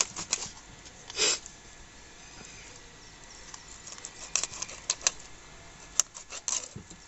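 Fins being cut off a skinned fish on a fixed curved daranti (sickle blade set in a wooden block). Irregular sharp clicks and crunches come as the blade snaps through the fin spines, with a longer scraping rasp about a second in.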